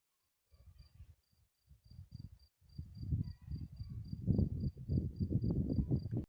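A cricket chirping in an even rhythm, about three chirps a second, over irregular low rumbles and thumps that grow louder and then cut off suddenly.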